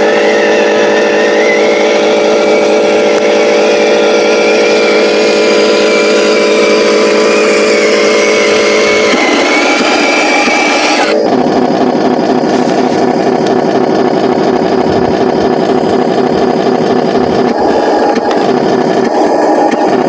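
Huina 1501 RC Scania 770S logging truck running: a steady engine-like drone with a thin motor whine over it. The sound changes abruptly about eleven seconds in.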